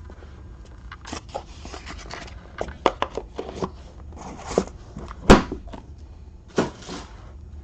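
Trading cards and their packaging being handled on a table: irregular clicks, rustles and light taps, with a sharp knock a little past five seconds in and a smaller one near the end.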